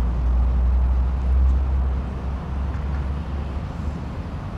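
Wind buffeting a clip-on microphone outdoors: a low, uneven rumble that eases after about two seconds.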